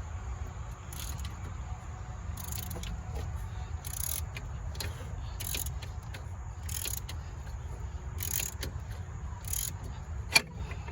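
Socket ratchet clicking in short strokes, about one every second and a half, as an alternator mounting bolt is worked in cramped space. A sharp clack near the end as the tool slips off. A steady low rumble underneath.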